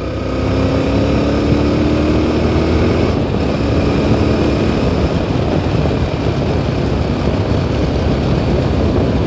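Yezdi Adventure's single-cylinder engine pulling as the motorcycle accelerates, its note rising steadily over the first few seconds. A rush of wind noise then takes over as the bike holds speed.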